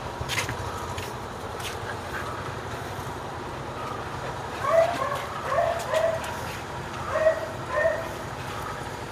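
Siberian husky giving five short yips in the second half, while two huskies play-mouth at each other, over a steady low hum.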